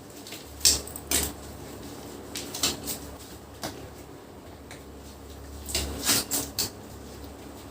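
Handling noises: scattered short clicks, knocks and rustles of objects being picked up and moved, with a cluster about a second in and another around six seconds.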